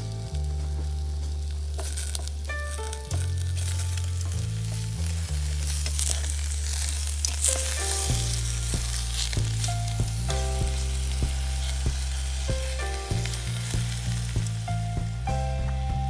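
Food sizzling and frying in a pan, with scattered small clicks and crackles, over background music of held bass notes that change every second or two. The sizzle is loudest in the first half.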